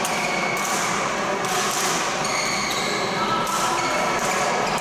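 Badminton rally on an indoor court: shoes squeaking briefly on the sports floor, several times, with sharp racket hits on the shuttlecock, over a steady hall din of voices and play from neighbouring courts.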